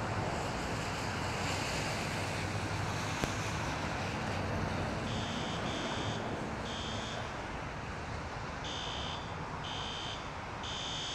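Steady rain and wind noise. From about five seconds in, an electronic alarm sounds in short, high-pitched beeps about once a second.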